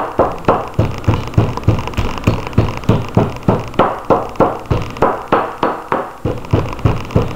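A glass bottle pounding raw steak on a wooden cutting board, about three hard strikes a second, each striking through the meat to the board. This is steak being tenderized by hand for country-style steak.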